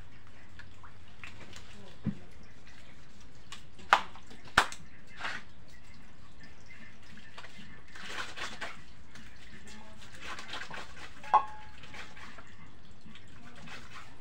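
Bathing with soap: hands scrubbing lather over skin and hair, with water dripping and a few sharp knocks, the loudest two close together about four seconds in.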